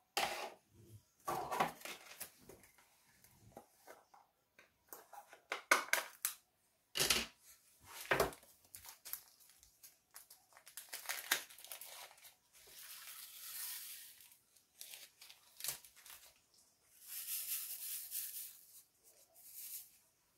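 Small plastic zip bag of resin diamond-painting drills being handled and opened, crinkling, with scattered sharp clicks. Twice later on comes a longer rattling rustle as drills are poured and shaken into a plastic tray.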